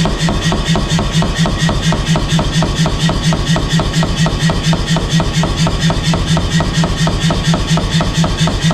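Power hammer running, striking hot mild-steel bar in rapid, even blows, several a second, over the steady hum of the machine.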